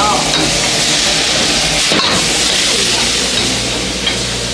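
Three cup chicken sizzling in a wok over a high gas flame as its sesame oil, rice wine and soy sauce cook: a loud, steady hiss. A single knock of the metal ladle comes about two seconds in.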